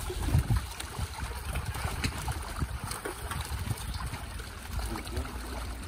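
Shallow pond water sloshing and splashing in small, irregular strokes as a fine-mesh fishing net is gathered and lifted by hand in the water.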